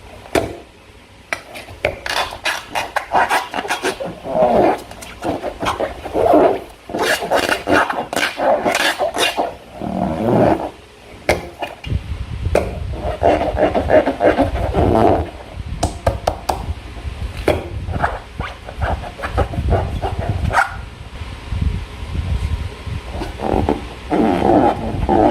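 Slime being squished and worked by hand, with many irregular squelches and quick sticky clicks. A low handling rumble joins about halfway through.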